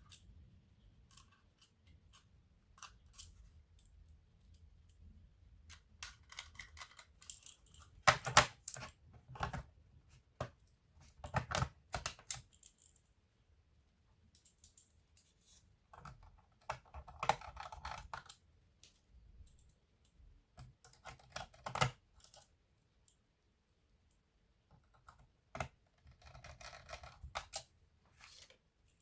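Irregular clusters of clicks and taps on a laptop's plastic keys and case, with a few louder clacks.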